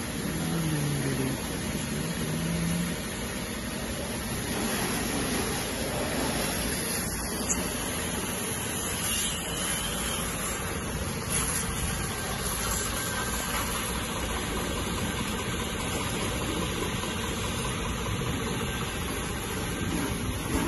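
Electric high-pressure car-wash pump running steadily, its motor and pump humming under the hiss of the water jet spraying.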